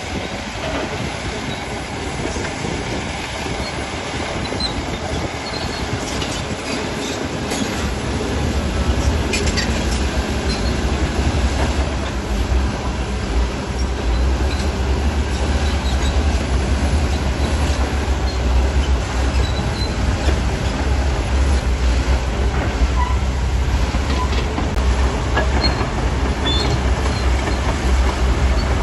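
Bulldozer working stone: its steel crawler tracks clank and squeal over a running diesel engine, with scattered knocks of stone. A deep engine rumble swells in about a quarter of the way through and stays.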